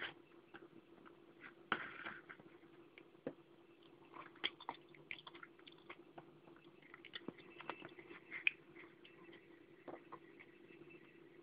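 Quiet room tone: a faint steady hum with scattered small clicks and scratchy ticks, the sharpest about two seconds in and again about eight and a half seconds in.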